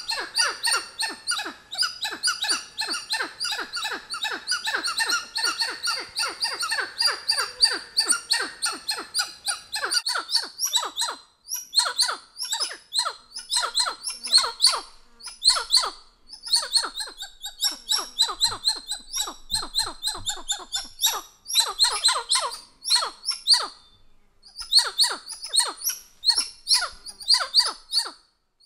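A titi monkey calling: a long, loud run of short notes that drop in pitch, several a second, with brief pauses between phrases in the second half.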